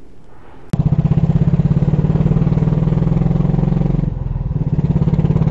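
Motorcycle engine heard from a helmet camera while riding. It starts suddenly and loud about three-quarters of a second in, with a steady pulsing note, eases briefly about four seconds in, then picks up again.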